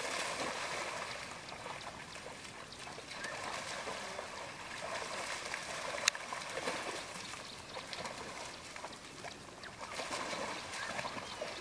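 African wild dogs running and wrestling through shallow river water, with uneven splashing throughout. A single sharp click about six seconds in is the loudest sound.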